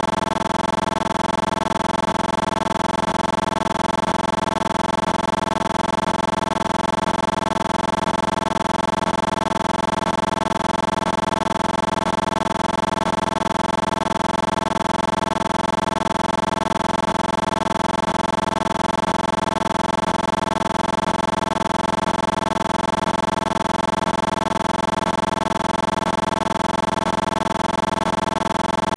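A steady, unchanging drone made of several held tones, at the same level throughout.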